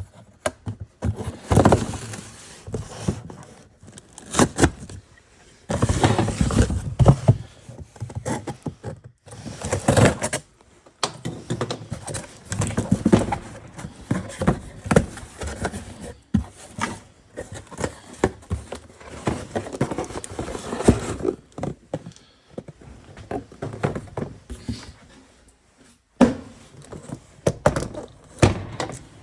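Packaging being cut and worked open with a DeWalt knife: irregular bursts of scraping and rustling, with frequent knocks and thunks as the box is handled.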